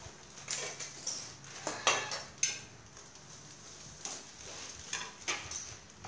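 Scattered clicks, clinks and rustles of food being skewered by hand: plastic sausage packaging crinkling, bamboo skewers tapping, and steel bowls and trays clinking. The loudest clicks come about two seconds in.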